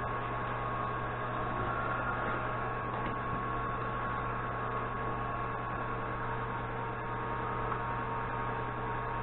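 Steady electrical hum with a thin, steady high tone over it.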